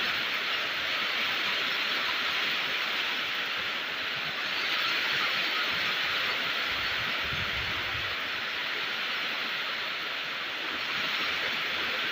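Steady, even hiss of rain falling outside, with a faint low rumble about seven seconds in.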